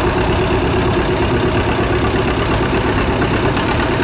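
1951 John Deere AR's two-cylinder engine running steadily under heavy load as the tractor pulls a weight-transfer sled.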